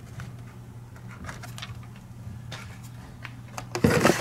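Handling noise from carded Hot Wheels blister packs being taken out of the case and set down: scattered soft plastic-and-card clicks and rustles, with a louder knock near the end. A steady low hum runs underneath.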